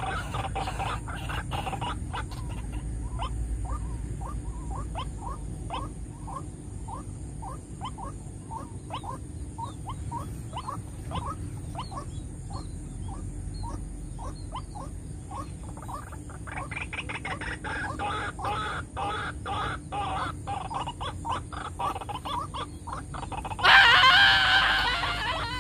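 White-breasted waterhens calling: a long series of short rising notes about two a second, growing into busier calling in the second half. About a second and a half before the end comes a sudden loud, harsh outburst of calling and flapping as a bird is caught by the neck in a snare.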